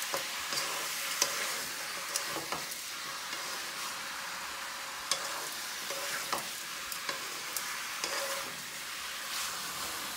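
Chicken pieces sizzling in oil in an aluminium kadai while a spatula stirs them, with scattered clicks and scrapes of the spatula against the pan.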